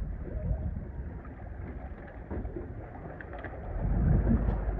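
Wind rumbling on the microphone over river water, growing stronger near the end.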